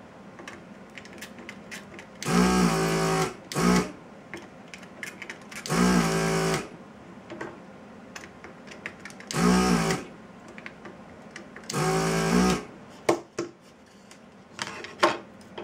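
Vacuum pump of a Hakko desoldering gun setup switched on in five short bursts, each a steady motor hum lasting under a second, a few seconds apart, as molten solder is sucked off joint after joint. The suction is working well. A few light clicks come near the end.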